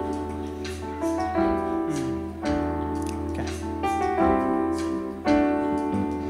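Keyboard playing sustained chords in a piano sound, with acoustic guitar accompanying, in an instrumental passage with no vocals.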